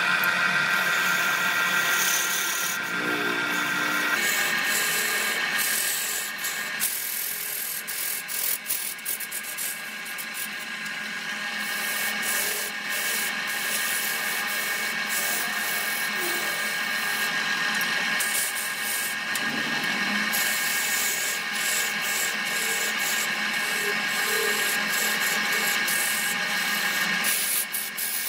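Turning tool cutting into a spinning wooden vessel on a belt-driven wood lathe: a steady scraping hiss of wood being cut, with steady whining tones over it and small clicks as shavings fly off.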